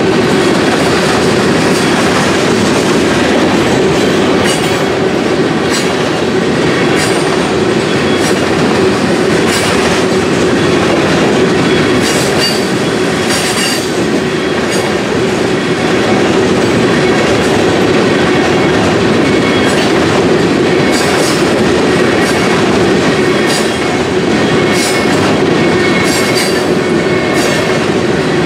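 CSX freight train of tank cars rolling past: a steady loud rumble of steel wheels on rail, with a sharp click every second or two as wheels cross rail joints.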